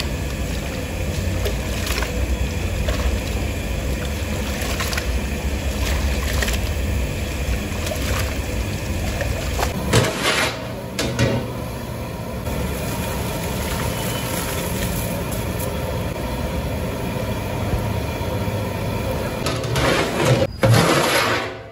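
A steady low roar runs throughout. About ten seconds in, and again near the end, there is metallic clattering as a large aluminium pot lid is handled and lifted off the pot.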